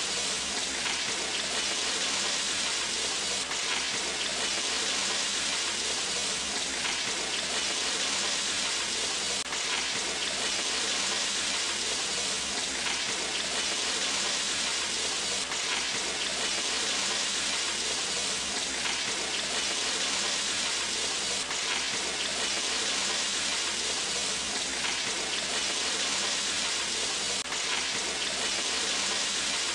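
Chicken, cashews, onion and peppers sizzling steadily in hot oil in a frying pan during a stir-fry.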